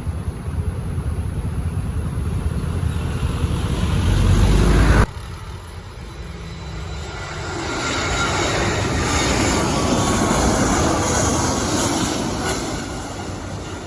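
Jet airliner engine noise: a deep rumble builds and then cuts off abruptly about five seconds in, and another jet's roar with a faint whine swells up and fades away.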